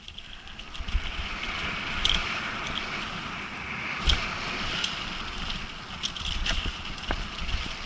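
Downhill mountain bike rolling fast down a dirt singletrack: a steady rush of tyres on dirt with wind buffeting the camera microphone. Knocks and rattles from the bike over bumps stand out about two and four seconds in, the one near four seconds the loudest, and again a few times near the end.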